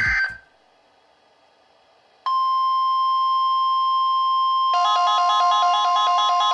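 National Weather Service alarm tone, a single steady high tone, sounds from a Midland WR120EZ weather radio's speaker. It starts abruptly about two seconds in, after a brief near-silent pause. About two and a half seconds later a second, rapidly alternating electronic alarm pattern joins it and plays over the steady tone.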